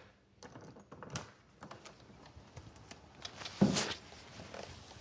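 Small clicks and knocks of something being worked loose by hand, with one louder scrape about three and a half seconds in.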